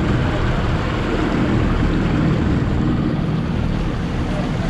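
Yamaha outboard motor running steadily as the boat moves, with water rushing along the hull and wind on the microphone.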